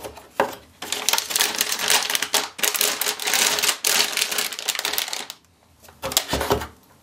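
Anti-static plastic bag crinkling and rustling steadily as a motherboard is slid out of it, then a few soft knocks near the end as the board is handled over its cardboard box.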